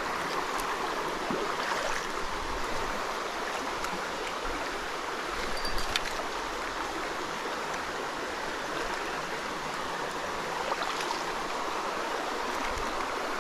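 Mountain stream rushing steadily over rocks, with a few faint ticks now and then.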